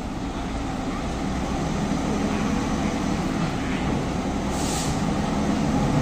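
Heavy truck engine running steadily, growing slightly louder. About two-thirds through there is a short hiss of air.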